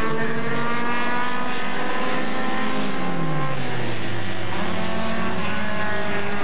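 Several super stock race cars running on a dirt oval, their engines sounding together at a steady level. One engine drops steadily in pitch about three seconds in as that car slows or passes by.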